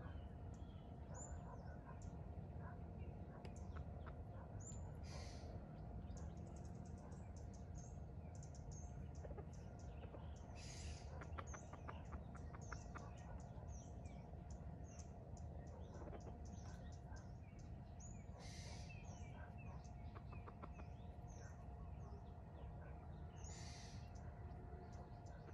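Faint wild birdsong: many short, high chirps throughout. A few brief hissing bursts come roughly every six seconds, and a quick run of soft clicks falls near the middle, over a faint steady hum.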